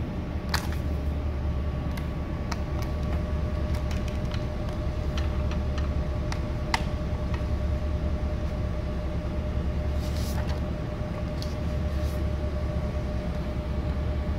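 Steady low hum with a constant whine from a running Da Vinci Super 3D printer's fans and motors during a print. Scattered light plastic clicks come from a printed face-shield frame and its clear visor being handled.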